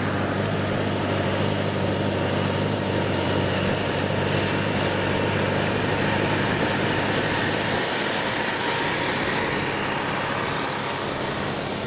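Diesel engine of a Kubota DC70 combine converted to haul rice, running steadily as the tracked machine drives past on asphalt. Its low drone weakens after about eight seconds as it moves away.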